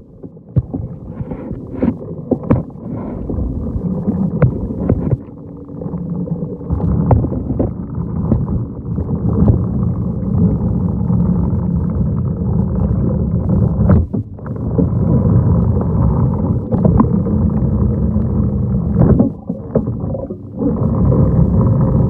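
Muffled underwater rumble of a manual pool vacuum head being pushed along the pool floor, its hose drawing water under the pool pump's suction, with a faint steady hum and frequent clicks and knocks. The rumble drops away briefly a few times.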